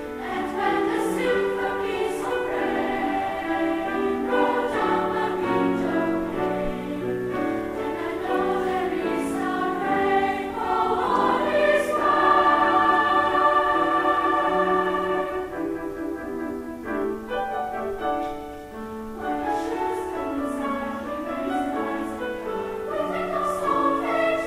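Girls' treble choir singing, with a long held chord about halfway through.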